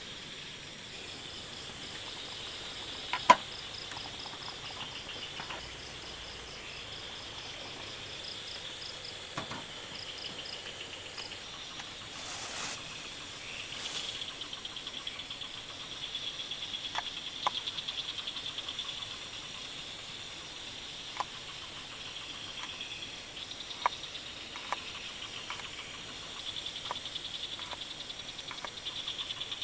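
Chorus of forest insects, high steady trilling with a pulsing buzz over it, broken by a few sharp clicks or knocks, the loudest about three seconds in, and two short rushing noises about halfway through.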